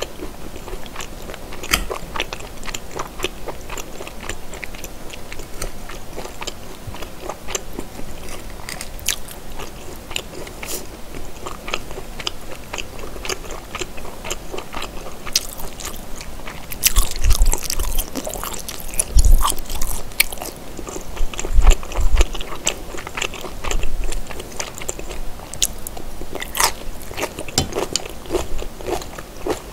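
Close-miked chewing and crunching of food chunks eaten from a fork, with wet mouth clicks; a run of louder crunches about seventeen to twenty-three seconds in.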